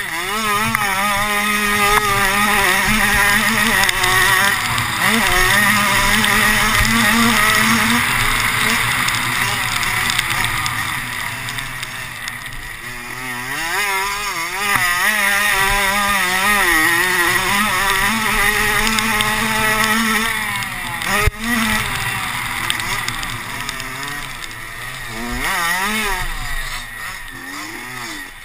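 Off-road racing engine heard on board, its revs climbing and dropping again and again under throttle, over a steady rush of noise, with one sharp knock about three-quarters of the way through.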